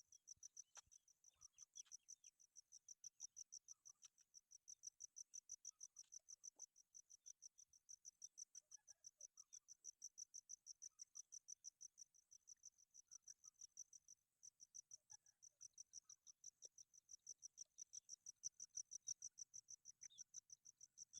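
An insect chirping steadily and faintly: a high-pitched pulse repeated about five times a second, with a few faint scattered clicks underneath.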